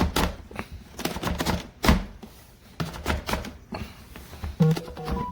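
Irregular hard plastic knocks and clacks of a Vittles Vault pet-food storage container and its airtight lid being handled.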